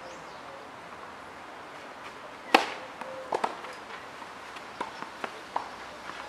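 A tennis ball struck by a racket on a clay court: one sharp pop about two and a half seconds in, then a few fainter knocks.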